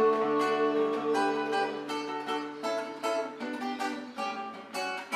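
Acoustic guitar (violão) strumming chords in a folia de reis (reizado) rhythm between sung verses, a few sharp strokes a second.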